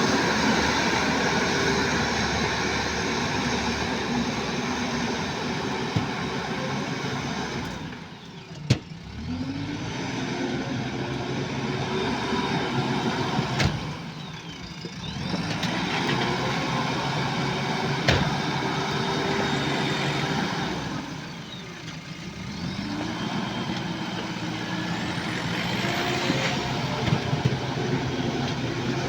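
JCB backhoe loader's diesel engine working under hydraulic load, dropping back three times between strokes and picking up again, with a few sharp clanks.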